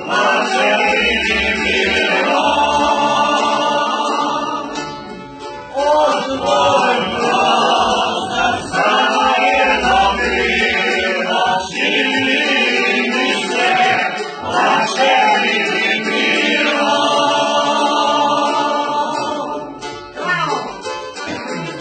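A group of voices singing together in chorus, one continuous song with short breaks between phrases.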